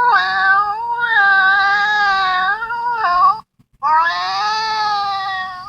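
A cat yowling: two long, drawn-out wails, the first of about three seconds, then a brief break and a second, shorter one that falls slowly in pitch.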